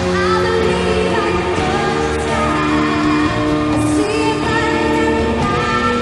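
A woman singing live with a band backing her, in long held notes.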